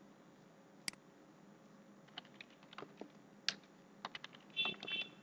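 Faint computer keyboard keystrokes and clicks, spaced irregularly, as a password is typed and confirmed. Near the end come two louder, higher-pitched clicks.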